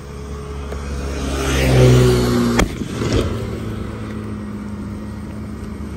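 A road vehicle's engine revving up as it accelerates, rising in pitch and growing louder, then one sharp firecracker bang about two and a half seconds in and a smaller crack after it.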